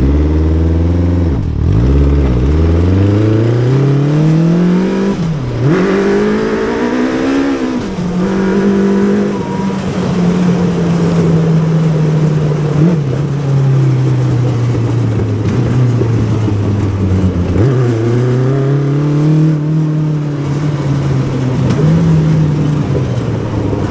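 Yamaha R6 600cc inline-four motorcycle engine in a go-kart accelerating hard, its pitch climbing and falling back sharply at each gear change, with a stretch of steady running in the middle.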